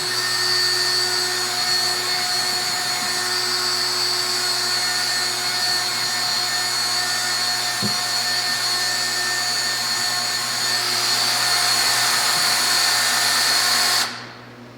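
Power drill running steadily to stir a batch of two-part epoxy resin, with one brief knock partway through; the drill stops suddenly near the end.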